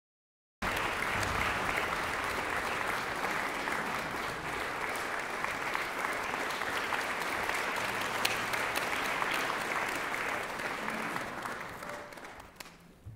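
Concert-hall audience applauding. The applause starts abruptly about half a second in and dies away near the end.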